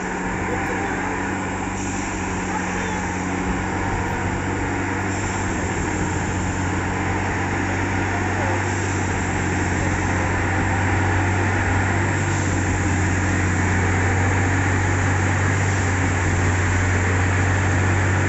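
Diesel engine of a Dynamic Tamping Express 09-3X railway track tamping machine running steadily as the machine moves slowly along the track: a low, even hum that grows a little louder about halfway through.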